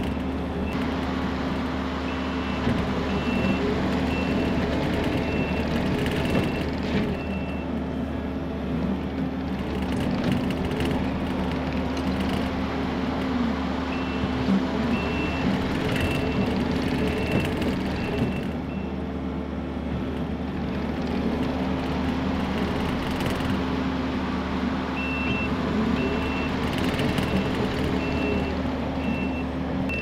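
Kubota SVL65-2 compact track loader's diesel engine running steadily while it grades, with its backup alarm beeping in three stretches as the machine reverses. There are a few short knocks.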